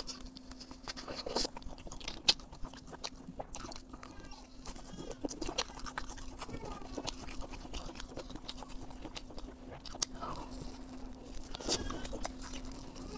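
Close-miked chewing and biting of sauced fried skewer food, a spiral-cut potato among it: a steady run of short, sharp wet smacks and crunchy clicks. A faint steady hum sits underneath.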